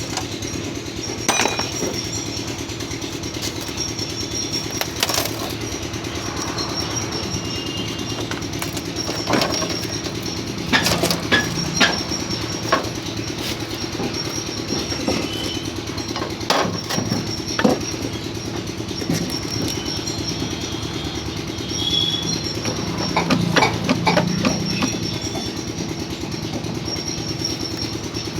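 An engine idles steadily, with occasional sharp metallic clinks and knocks scattered through it, several of them in clusters.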